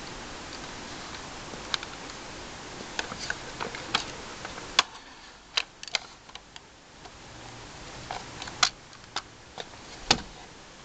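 Irregular sharp clicks and small knocks from the metal parts of a Polaroid 195 Land Camera as its bellows front is handled and pushed back toward the body. The loudest clicks come about halfway through and twice near the end.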